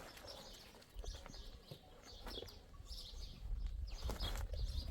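Small birds chirping in short, scattered high calls, over a low rumble that grows louder near the end.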